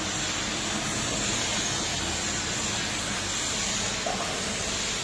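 Automatic pallet stretch-wrapping machine running, a steady mechanical hum with hiss.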